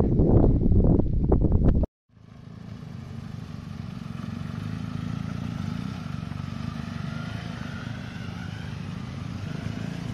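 Wind buffets the microphone for about two seconds, then the sound cuts off suddenly. After the cut comes a steady low engine rumble from a group of motorcycles.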